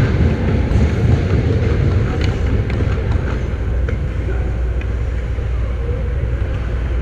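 Ice-rink ambience picked up by a camera on the goal net: a steady low rumble with a few faint ticks of sticks and skates on the ice.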